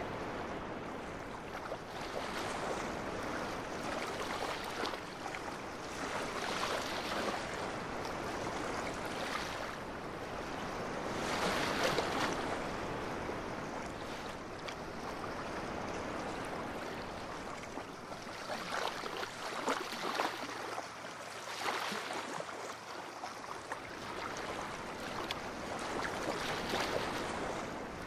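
Ocean surf: small waves breaking and washing up a beach. The wash rises and falls every few seconds and is loudest about halfway through.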